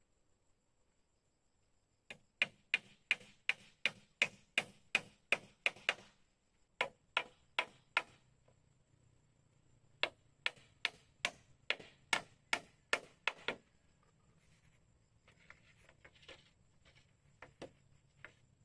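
A hand tool striking bamboo over and over, about three sharp blows a second, in three runs with short pauses between them, then a few fainter knocks near the end.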